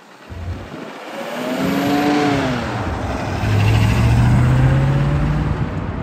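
Mercedes-Benz 300 SEL 6.8 AMG 'Red Pig' V8 race saloon driving past and pulling away. Its engine note rises and falls once about two seconds in, then settles into a deep, steady note that climbs slowly as the car accelerates away, loudest about four to five seconds in.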